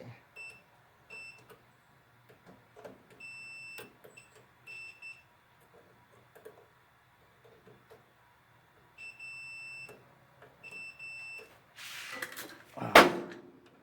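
Multimeter continuity beeper giving short, uneven high beeps as the probes touch the dryer timer's terminals with the knob on heat, showing the heat contacts closed. Near the end, a rattle and a sharp click.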